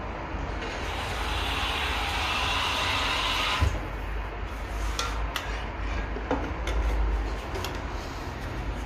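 Kitchen preparation sounds over a low steady hum: a hiss for about three seconds that stops with a knock, then a few light clicks and taps of utensils.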